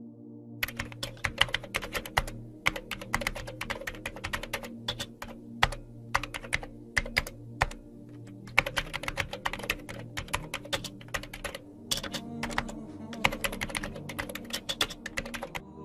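Computer keyboard typing sound effect: rapid key clicks in runs with several short pauses, over soft background music.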